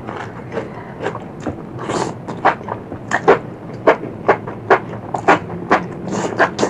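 Close-up eating sounds: a person chewing crunchy food, with sharp crunches about twice a second and a few brief hissy slurps or bites in between.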